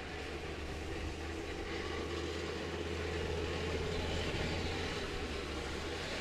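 Steady low rumble of armoured tracked vehicles' engines running, under a constant low hum; it grows a little louder partway through.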